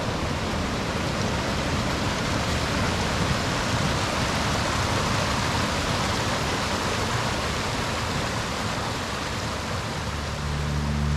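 Waterfall rushing: a steady, even roar of falling water, with guitar music coming in near the end.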